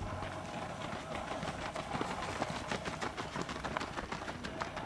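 Footfalls of a pack of runners on a dirt track: many quick, overlapping steps that are thickest from about two seconds in as the group passes close by.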